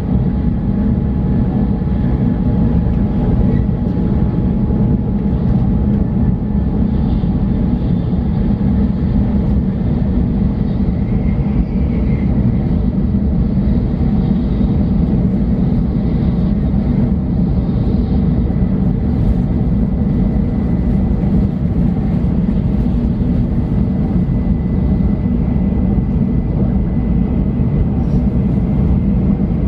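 Steady low rumble of a Shinkansen bullet train running at speed, heard inside the passenger cabin.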